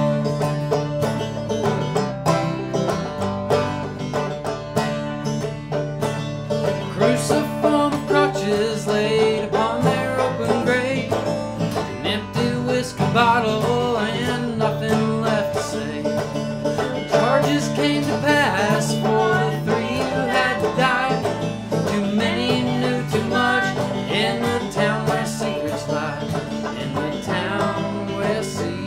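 Banjo picking over a strummed Taylor koa acoustic guitar, a bluegrass-style instrumental passage of an original song.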